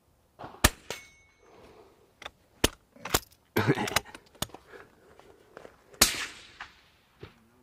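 Hatsan Escort .22LR bolt-action rimfire rifle firing. A sharp crack comes about half a second in, and a moment later a steel gong rings briefly as the bullet strikes it. More sharp cracks and clicks follow, the loudest about six seconds in.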